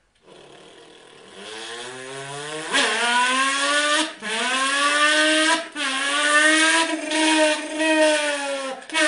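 Car engine under hard acceleration, its pitch climbing and cut by several short breaks, each followed by a slightly lower note that rises again, like upshifts through the gears. It illustrates the healthy engine sound: fuller under hard acceleration, louder but smooth and even at high speed.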